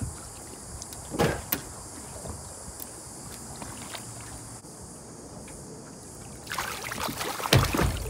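Water splashing at a boat's side as a small bull shark pup held by the tail is released: a brief splash about a second in, then a longer, louder stretch of splashing near the end as the shark swims off.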